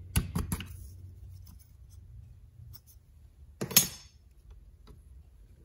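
Small metal carburetor parts clicking and clinking as they are handled and lifted out of the float bowl. Several quick clicks come at the start and one louder knock a little under four seconds in.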